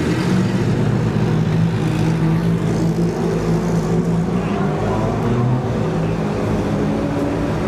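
Single-seater formula race car's engine running at low, steady revs as it rolls slowly past, with other cars' engines behind it.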